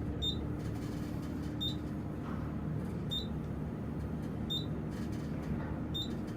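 Elevator car in motion, giving a steady low hum. A short high chirp repeats about every second and a half.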